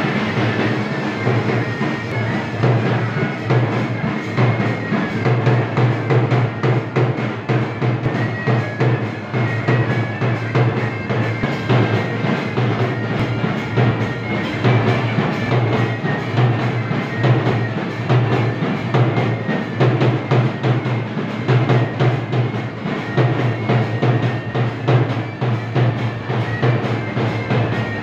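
A large double-headed drum beaten with a stick, keeping a steady, driving dance rhythm.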